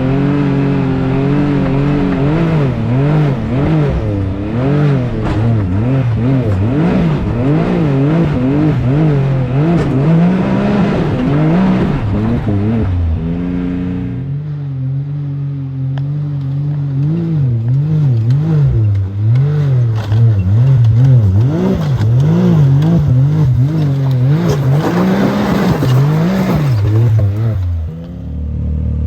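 Can-Am Maverick X3's turbocharged three-cylinder engine run hard up a steep hill climb, its revs rising and falling over and over as the throttle is worked. The sound changes character about halfway through, and near the end the engine settles to a steadier, lower note.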